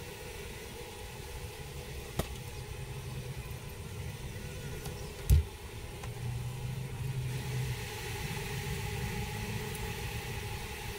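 A steady low mechanical-sounding hum, with a single sharp knock about five seconds in and a faint click a couple of seconds earlier.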